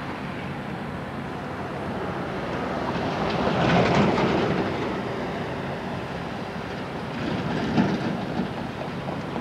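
Railway passenger cars rolling on jointed track, their steel wheels clicking over the rail joints. The sound swells to its loudest about four seconds in and eases off, with a few sharper clacks near the end.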